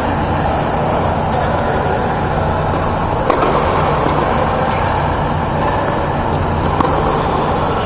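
Steady loud hum and rush of air from the blower fans of an air-supported tennis dome. Over it come two sharp knocks of racket on tennis ball, one about three seconds in and one near the end.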